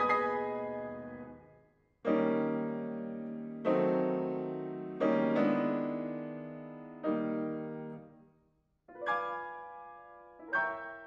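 Solo concert grand piano playing slow, full chords, each struck and left to ring and fade before the next, about every one and a half seconds. The sound dies away almost to nothing twice, about two seconds in and near the eight-second mark, before the next chord.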